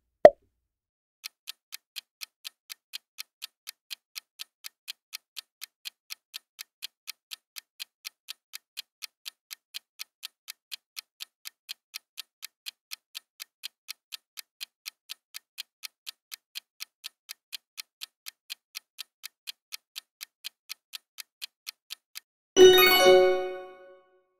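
Quiz countdown-timer sound effect: a short pop at the start, then a clock ticking evenly for about twenty seconds, ending in a loud bell-like chime that rings out and fades, marking time up.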